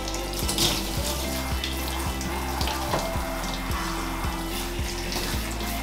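Handheld shower sprayer running, its spray rinsing soap off a puppy's coat in a bathtub, over background music with a steady beat about twice a second.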